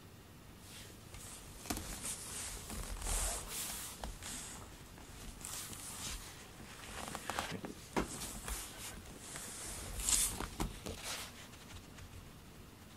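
Soft, irregular rustling and scuffing close to the microphone, with a few sharp clicks about eight and ten seconds in.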